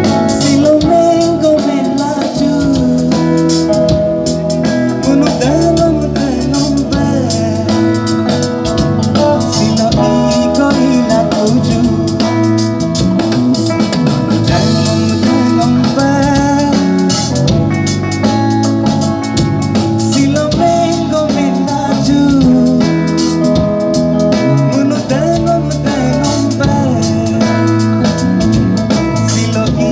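Live band playing through a PA: a male vocalist singing while playing acoustic guitar, backed by electric bass and a drum kit.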